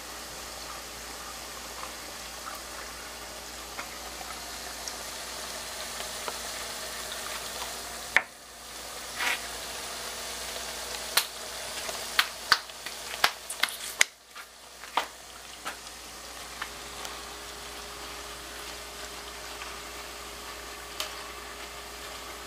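Tortilla pieces deep-frying in hot oil in a wire fryer basket, a steady sizzle. A run of sharp clicks and knocks stands out in the middle.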